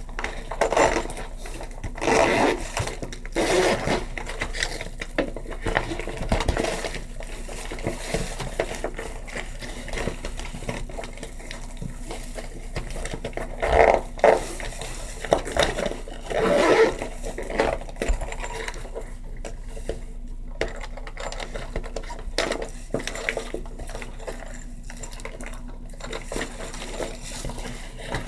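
Small objects from an acrylic nail kit being handled: scattered clicks and taps with short scraping bursts, over a low steady hum.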